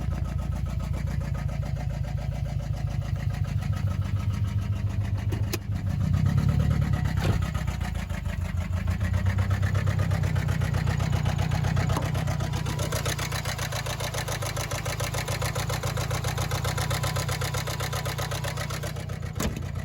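Subaru flat-four boxer engine running rough with an uneven, stumbling beat from a bad misfire, sounding horrible. It gets louder for a few seconds about six seconds in.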